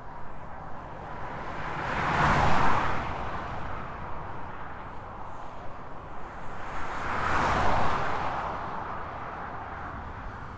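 Cars passing by at motorway speed: two pass-bys about five seconds apart, each swelling to a peak and fading away.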